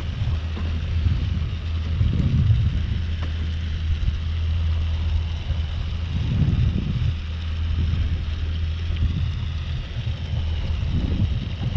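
Wind buffeting the microphone in gusts every few seconds, over a steady low hum from the fishing boat's engine.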